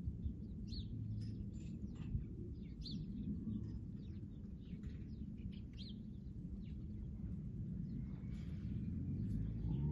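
Small birds chirping, short scattered calls over a steady low background noise.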